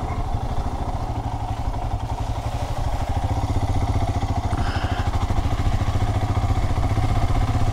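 Royal Enfield Himalayan's 411 cc single-cylinder engine running steadily under way, its firing pulses even.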